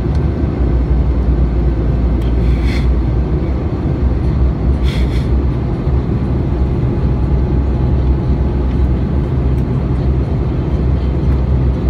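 Steady, low cabin roar of an Airbus A320neo's engines and airflow in the climb, heard from a passenger seat by the wing. Two brief sharper noises come about 2.5 and 5 seconds in.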